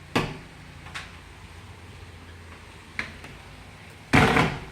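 Laundry closet doors being handled and closed: a sharp click at the start, a couple of light knocks, then a louder clatter lasting about half a second near the end as the doors shut.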